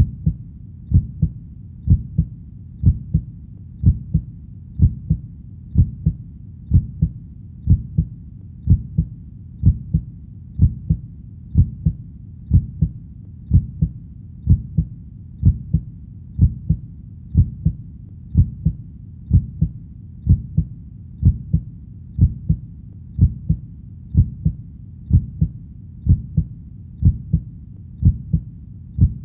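A heartbeat beats steadily at about one beat a second. Each beat is a dull lub-dub double thump, heard over a low steady rumble.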